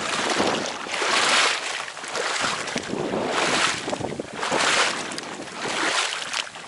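Water swishing and sloshing in surges about once a second, mixed with wind buffeting the microphone.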